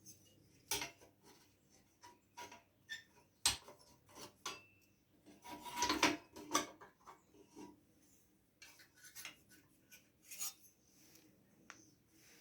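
Metal engine parts and tools being handled and tried in place: scattered clicks, scrapes and light clunks, busiest about six seconds in.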